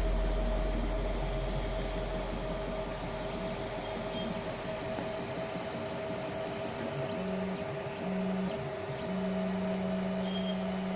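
FDM 3D printer running a print: a steady hum and whine from its cooling fan and stepper motors. A lower motor tone switches on and off several times in the second half as the print head moves.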